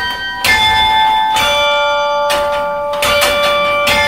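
Carillon of bronze tower bells played from its baton keyboard: single bell notes struck about once a second, each ringing on under the next. It is a four-note chime phrase of the kind once played to announce the hour strike.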